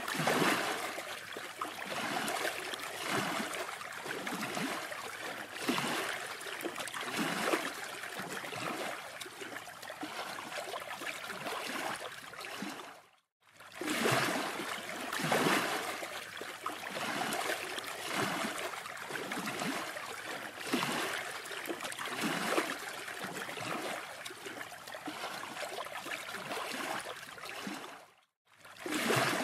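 Ocean surf breaking and washing up a sandy beach: a steady rushing noise that keeps swelling and easing, cutting out briefly about halfway and again near the end.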